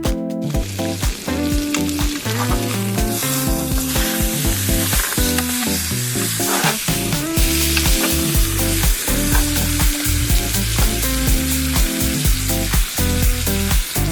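Food sizzling and frying in a hot pan, a dense crackling hiss that is strongest over the first half and carries on more lightly, over background music with a walking bass line.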